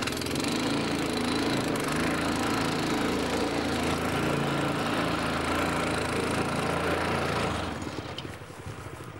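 Small petrol engine of a walk-behind turf cutter running steadily under load as it cuts turf. It dies away about 8 seconds in.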